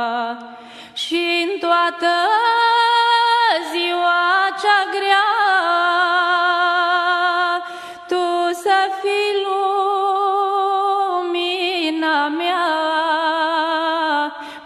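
Slow Romanian Christian devotional song to the Virgin Mary, its melody carried in long held notes with a wavering vibrato, breaking off briefly about a second in and again around eight seconds.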